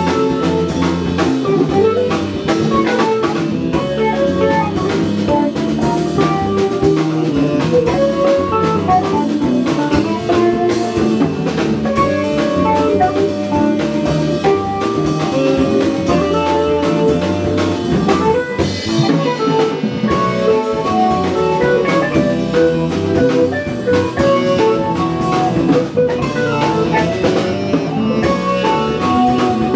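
Live instrumental band playing a jazz-rock piece: drum kit keeping time under electric guitar lines and bass guitar.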